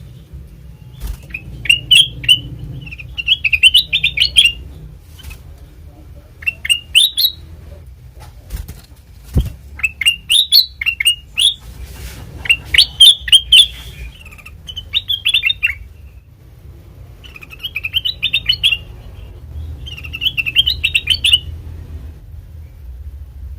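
Kutilang emas, a bulbul, singing about eight quick bursts of bubbly, chirping notes, each lasting a second or two with short pauses between. This kind of song is used as a lure call for trapping birds. A faint low hum runs underneath, and there is a single low thump about nine seconds in.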